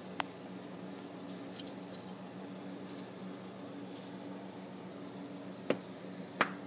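Small steel parts of a disassembled Spyderco Mariner folding knife clicking and clinking as they are handled. There is a single click just after the start, a brief light metallic jingle about a second and a half in, and two sharper clicks near the end.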